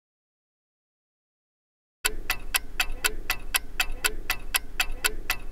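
Complete silence for about two seconds, then a clock-ticking sound effect, about four even ticks a second, marking a countdown timer.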